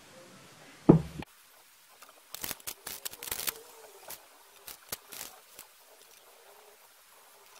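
A single loud knock about a second in, then a run of short, soft scraping swishes as a metal spatula spreads whipped cream across a tart.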